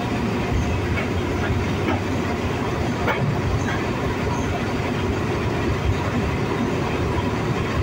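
Passenger train running on the rails, heard right beside the coupling between the first coach and the diesel locomotive. There is a steady rumble of wheels and running gear, with a few scattered clacks from the track.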